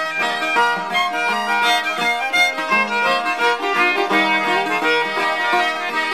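Background music with a quick run of changing notes, instruments rather than voice.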